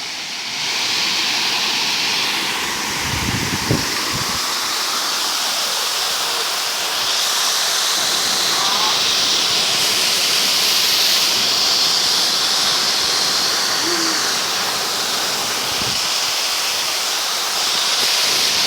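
Waterfall rushing steadily, with a brief low rumble about three to four seconds in.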